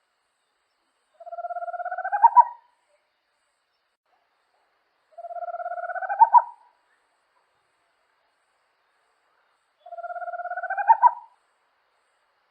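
A small owl calling three times, about four seconds apart: each call is a fast trill that rises slightly in pitch and ends in two or three louder accented notes.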